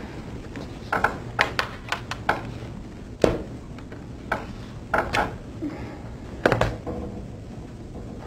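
A dozen or so light taps and knocks at irregular intervals, a phone and laptop being handled on a tabletop, over low room noise.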